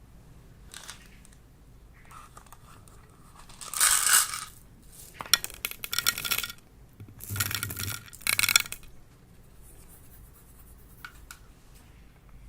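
Slime being squished and stretched by hand, in several bursts of crackly, clicking noise. The loudest bursts come about four seconds in and again between about seven and eight and a half seconds.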